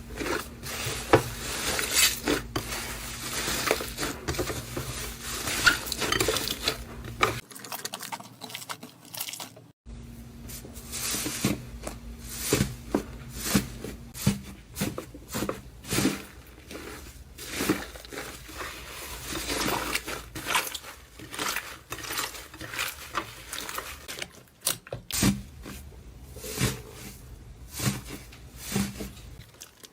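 Slime being handled, poked and squished, making a dense run of sticky clicks and crackling pops. A faint steady hum sits underneath part of it and drops out at the cuts between clips.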